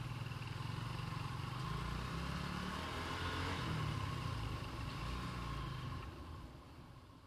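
Motorcycle engine running at riding speed, heard from on the bike, its note rising and falling a little. The sound fades out near the end.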